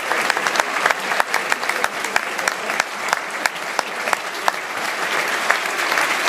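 Theatre audience applauding at a curtain call: a dense, steady patter of many hands clapping, with some single sharp claps standing out.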